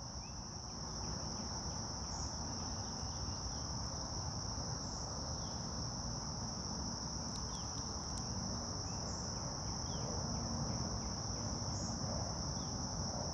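Steady, high-pitched chorus of insects, over a low, even background noise.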